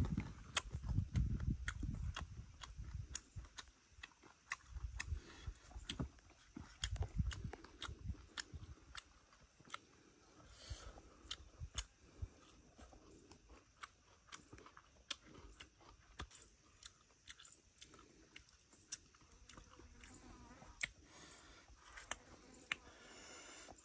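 A man chewing and eating snake meat and bamboo shoots close to the microphone, with many short, sharp mouth clicks and smacks. It is louder during the first several seconds.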